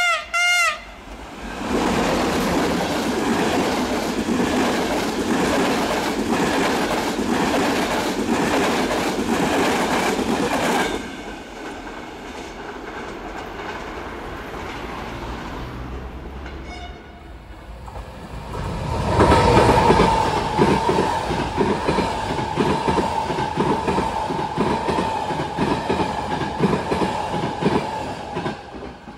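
Passenger trains passing close on the line: a horn call right at the start, then the rapid clickety-clack of wheels over the rail joints as a locomotive-hauled intercity goes by. After a quieter spell, a second train passes with the same wheel beats and a steady high tone over them, dying away near the end.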